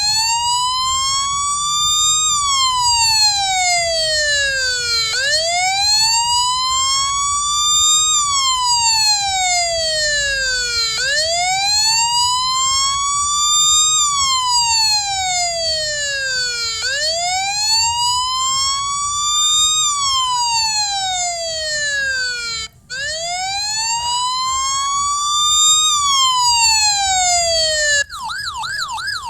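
Electronic emergency-vehicle siren sounding a slow wail, rising and falling in pitch about every six seconds. Near the end it switches to a fast yelp.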